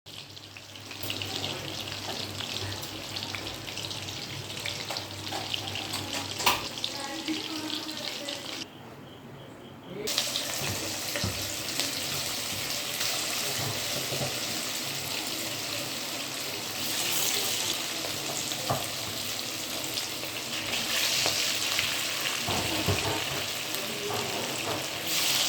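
Chicken pakoda deep-frying in hot oil: a steady sizzle thick with small crackles and pops. It drops away for about a second around nine seconds in, then carries on.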